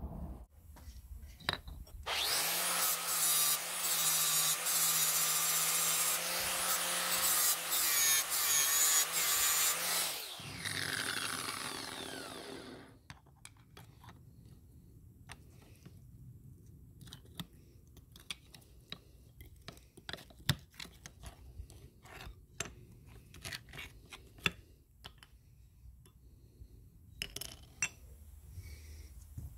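A power tool runs with a loud, harsh grinding noise for about eight seconds, then is switched off and winds down with a falling whine. After that come light, scattered metal clicks and scrapes as a screwdriver pries apart the bone grinder's stacked, rusty toothed cutting plates held in a vise.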